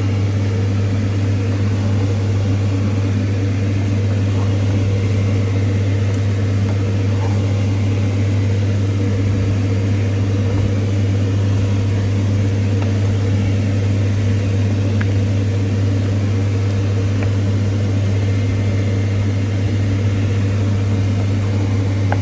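A steady low machine hum, unchanging in pitch and level, with a few faint light clicks.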